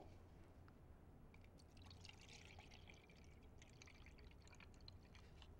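Faint sound of water being poured into a measuring cup, a thin splashing trickle starting about a second and a half in and stopping near the end.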